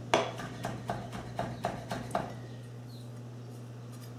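Chef's knife chopping habanero pepper on a wooden cutting board: about nine quick knocks, roughly four a second, stopping about halfway through.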